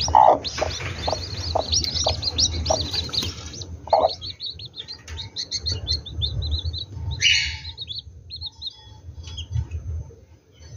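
Newly hatched chicks peeping under a broody hen: a quick run of high, falling peeps for the first three or four seconds, then sparser peeps.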